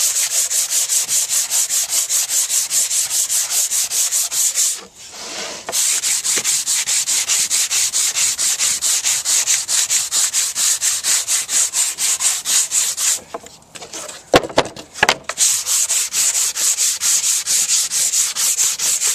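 Hand sanding a wooden board's edges with a sanding block: quick, even back-and-forth scraping strokes, about five a second. The strokes stop briefly about five seconds in, and again around two-thirds through, where a few sharp knocks are heard before the sanding resumes.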